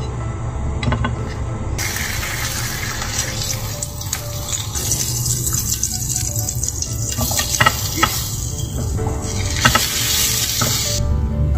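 Slices of smoked duck breast sizzling in a hot non-stick frying pan, the fat bubbling around them. The sizzle starts about two seconds in and carries on as sliced onion and cabbage are stirred in with tongs, with a few sharp clicks of the tongs on the pan. Soft background music plays underneath.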